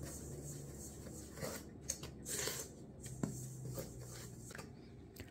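Wooden spoon stirring dry flour with sugar and salt in a stainless steel bowl: soft, irregular scraping and rustling strokes against the metal.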